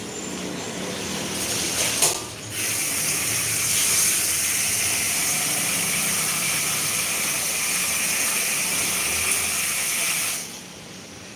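A knock about two seconds in, then water running from a tap in a steady rush that stops abruptly near the end.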